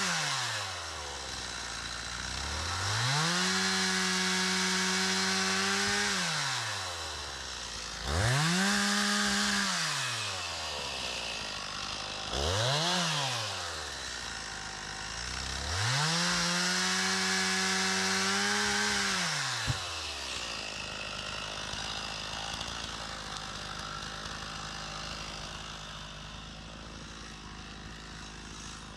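Stihl MS 391 two-stroke chainsaw bucking firewood: the engine is throttled up to a high steady whine and let back down to idle four times, the third only briefly. It cuts out about two-thirds of the way through, with a faint click.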